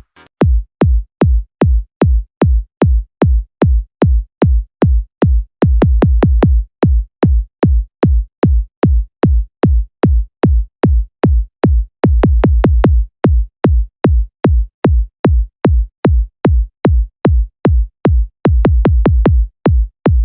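Electronic sound-check track made of deep drum-machine bass kicks, about three a second, packing into fast rolls three times along the way.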